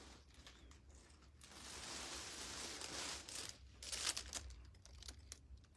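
Faint rustling and crinkling handling noise, with a few light clicks about three and a half to four and a half seconds in.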